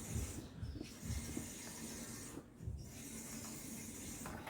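Fish frying in hot oil: a steady sizzling hiss that drops out briefly a few times, with low thumps underneath.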